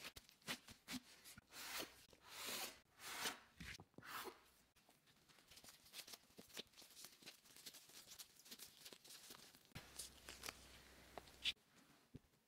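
Faint rustling and crinkling of disposable plastic gloves while dough pieces are pulled and rounded into balls by hand, in several short swells over the first few seconds, then fainter light taps and ticks.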